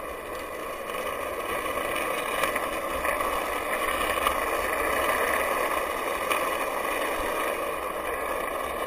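Skateboard wheels rolling steadily over asphalt, an even rolling noise with a few light clicks.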